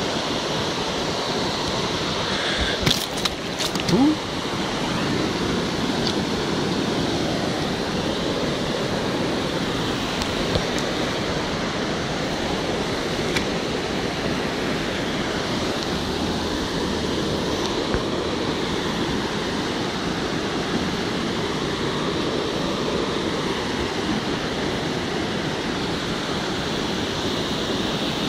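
Steady rush of stream water over stones. A few sharp knocks sound about three to four seconds in.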